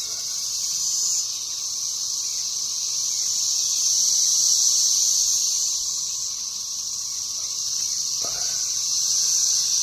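A dense chorus of cicadas: a loud, steady, high-pitched droning buzz that swells and eases slightly over several seconds.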